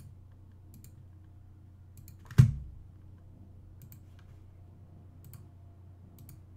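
Computer mouse clicking at irregular intervals as count markers are placed on a drawing, with one loud thump about two and a half seconds in, over a faint steady low hum.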